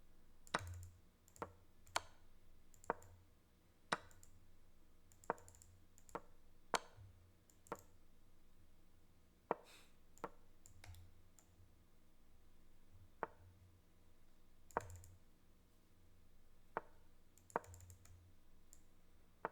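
Faint, sharp clicks at uneven intervals, about one a second, made while moving pieces quickly in an online chess game under time pressure.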